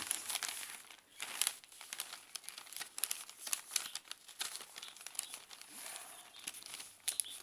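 Newspaper being folded and creased by hand: a continuous rustling and crinkling of paper with many short crackles.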